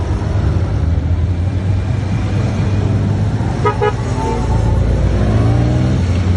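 Honda Gold Wing touring motorcycles passing at close range, their engines running with a steady low drone. A horn gives two short toots a little past halfway, and an engine climbs in pitch just after.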